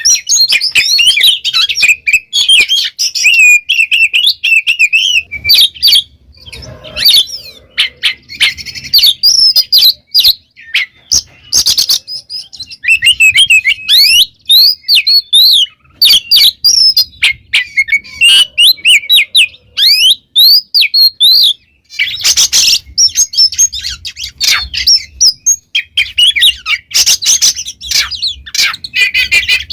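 Oriental magpie-robin (kacer) in full, loud song: a rapid, ever-changing stream of sliding whistles, chirps and sharp trill notes, broken by a couple of short pauses.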